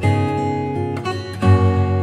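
Background music of strummed acoustic guitar chords, with a new chord struck about one and a half seconds in.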